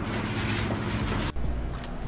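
Steady rumbling hiss of a phone recording, like wind buffeting the microphone. It cuts off abruptly about a second and a half in, leaving a quieter low hum.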